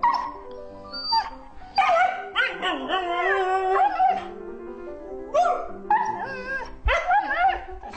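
Husky vocalizing: a long wavering whine-howl from about two seconds in, then two shorter yowling calls near the end, over background music.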